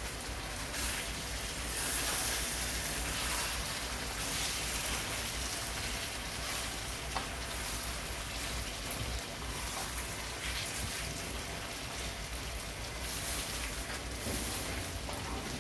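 Mullet fish pieces frying in oil in a karahi: a steady sizzle with faint crackling.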